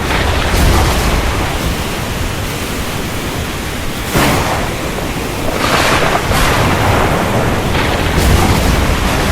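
Steady rain hissing heavily, with a low thunder rumble underneath. The rain swells in surges about four, six and eight seconds in.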